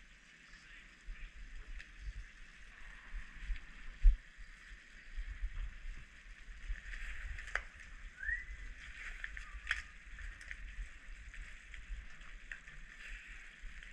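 Chilli crab sauce simmering in a steel wok on a portable gas burner, with a steady hiss and a few sharp clicks of the ladle and spatula against the wok. Low rumbling bumps on the microphone, with one loud thump about four seconds in.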